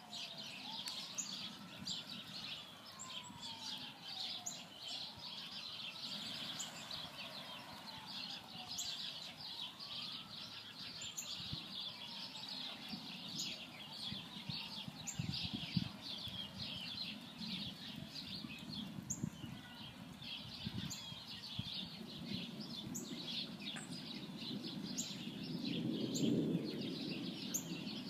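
Many birds chirping steadily. Under them, a faint distant siren wails up and down in pitch about every four to five seconds and fades out about halfway through. A low rumble swells near the end.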